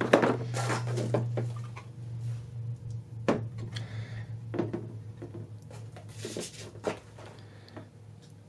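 Handling sounds of a graphics card being moved about and set down on a wooden tabletop: a few light knocks and clicks with short rustles between them.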